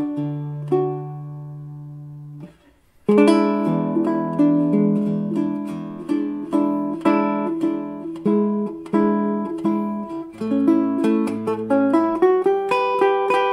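Background music played on a plucked string instrument. A chord rings out and fades, there is a short pause, and picked notes start again about three seconds in.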